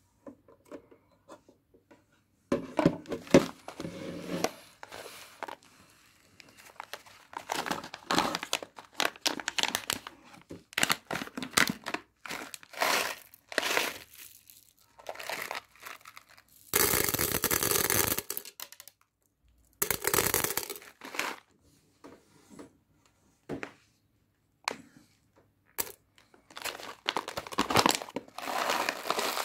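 Intermittent crinkling and rustling handling noises, in bursts of a second or two with short gaps. About halfway through there is a steady hissing rush lasting about a second and a half.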